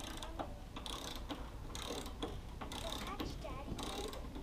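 Torque wrench ratcheting in short strokes about once a second as the bolts on the bandsaw mill head are worked.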